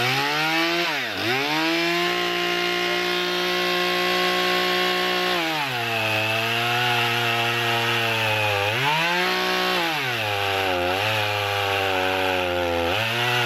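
Husqvarna two-stroke gas chainsaw revved to full throttle, its engine pitch dropping as the chain bites into a log and holding lower under load while it cuts through, rising briefly once midway and climbing again near the end as the cut finishes.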